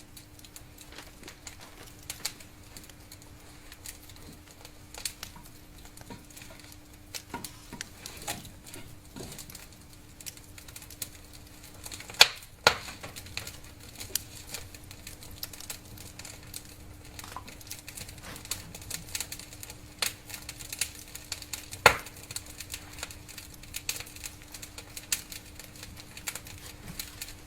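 Fire crackling in a fireplace: irregular small crackles and pops, with a few sharper, louder pops about twelve seconds in and again later, over a faint steady hum.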